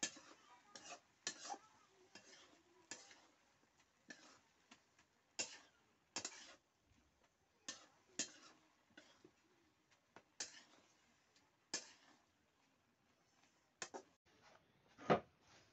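Spatula scraping and knocking against a black kadhai as shredded potato and egg fry is stirred: irregular sharp clicks and short scrapes about once a second, the loudest near the end.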